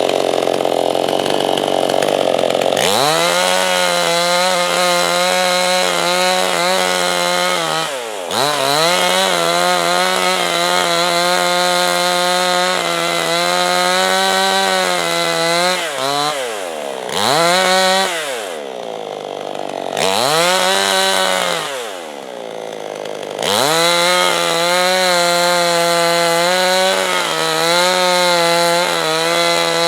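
Gasoline chainsaw ripping lengthwise through a log to mill a slab freehand, the engine held at high revs and its pitch wavering under load. It opens with a rough noise for the first few seconds, then the engine note climbs. The throttle eases off several times, the pitch falling and climbing back, with two brief quieter lulls about two-thirds of the way in.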